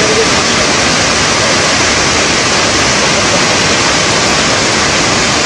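Water rushing through the open spillway gates of Srisailam Dam, a loud, steady, unbroken rush of falling water.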